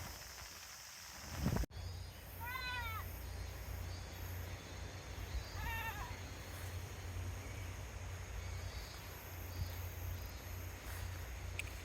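Goat bleating twice, two short high calls that rise and fall in pitch, over a steady low rumble.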